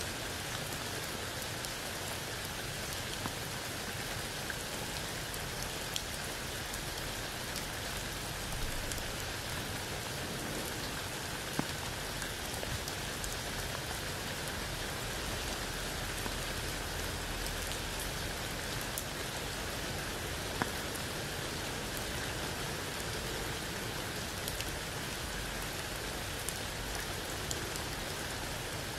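Steady rain falling under a tree onto wet ground and a puddle, with a few louder single drops landing now and then.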